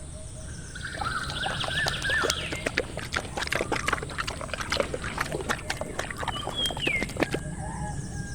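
Animal and bird calls: wavering chirps and calls over many short clicks, with a falling whistle near the end.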